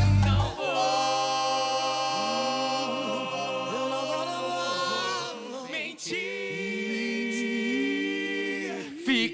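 A mixed group of singers holds long sustained vocal chords in harmony with no beat behind them. The backing beat cuts out about half a second in. A first chord runs for about five seconds, and after a brief break a second one follows, with one voice sliding up and down above the held notes.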